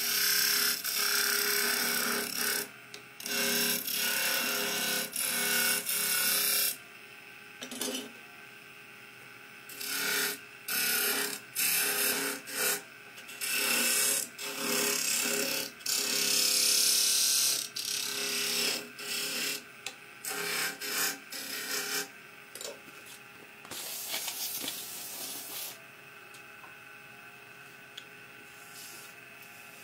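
Flat steel turning tool scraping a spinning pale-wood spindle on a lathe, in repeated noisy passes of a second or two with short gaps, over the steady hum of the lathe motor. The cutting stops about 22 seconds in, with one weaker pass a little later, and then only the motor runs.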